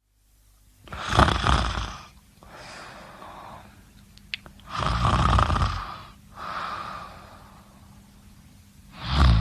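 A person snoring in sleep: a loud snore, then a quieter breath, twice, about four seconds apart, with a third snore starting at the end. A brief click between the first two snores.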